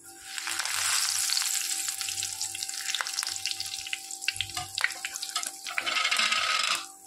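Fresh curry leaves sizzling as they hit hot oil in a wire frying basket, with many sharp crackles and pops. The sizzle is loudest just after the leaves go in, thins to scattered pops, swells again near the end, then cuts off abruptly.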